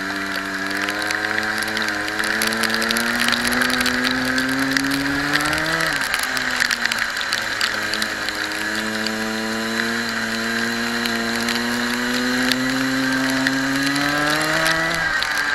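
Kart engine under power, its pitch climbing steadily and then dropping sharply when the throttle is lifted, about six seconds in and again near the end, with a rattly buzz throughout.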